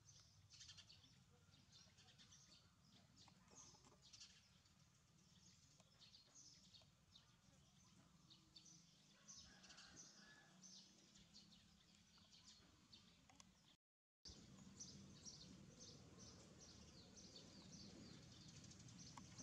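Near silence: faint outdoor ambience of small birds chirping over a low hum. The sound drops out completely for a moment about two-thirds through.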